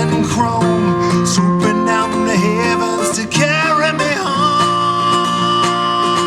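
Acoustic guitar playing an instrumental passage: a quick run of plucked notes, then a long held note about four seconds in.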